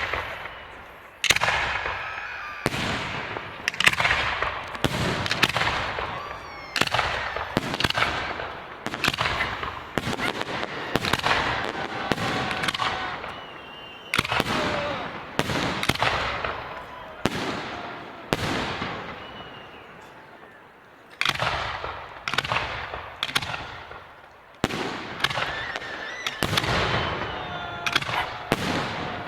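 Fireworks salute: a run of bangs about one a second, each trailing off as it fades, with a short lull of a second or two just past the middle before the bangs resume.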